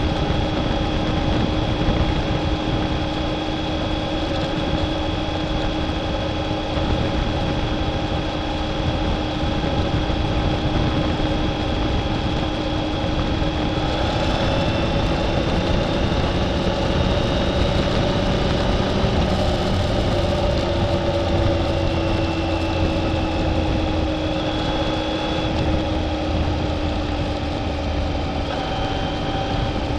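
Motorcycle engine running at a steady cruising speed, mixed with wind and road noise. The engine pitch holds nearly level, dipping slightly about halfway through, then rising a little and easing back.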